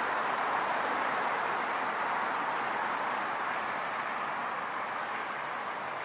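Steady wash of road traffic from a wide multi-lane city avenue, easing off slightly toward the end, with a few faint clicks on top.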